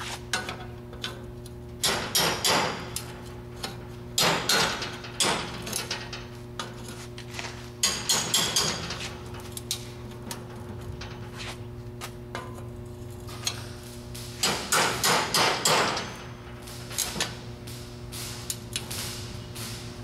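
Hand hammer striking the steel exhaust pipe and flange clamped in a bench vise: several quick flurries of metal-on-metal blows with pauses between, over a steady low hum.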